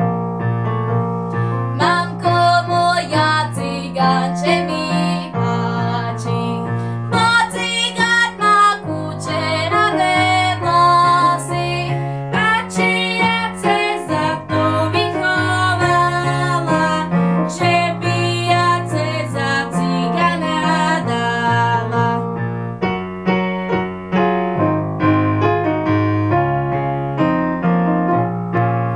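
Girls singing a Slovak folk song over an electronic keyboard accompaniment with a steady bass line. The singing stops about 22 seconds in, and the keyboard plays on alone.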